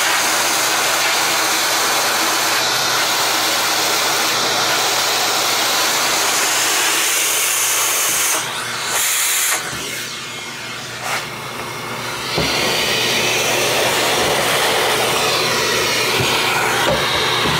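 Vintage Toshiba VC-8300 vacuum cleaner running, a steady loud rush of motor and airflow. About halfway through, the rush dips and turns duller twice, once briefly and then for about two seconds, before coming back to full strength.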